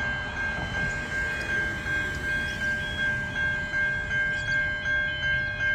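Siemens Type 3 electronic level-crossing bell ringing at a fast, even beat, a high repeating tone that signals the crossing has just activated for an approaching train.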